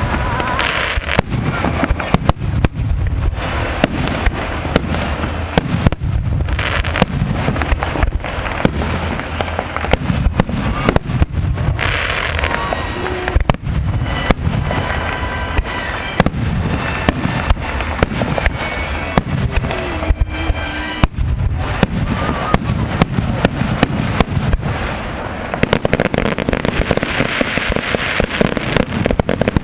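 Fireworks display: bangs and crackling going off one after another in quick succession, with hardly a break.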